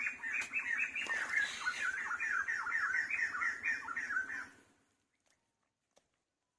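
An animal calling in a fast run of short, falling notes, about four or five a second, which stops about four and a half seconds in.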